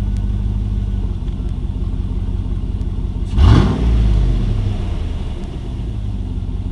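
Pickup truck engine idling with a steady low rumble. About halfway through it is revved once sharply, then drops back to idle.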